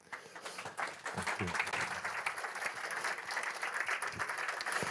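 Audience applauding: a dense, even patter of many hands clapping that starts right at the beginning, with a few faint words underneath.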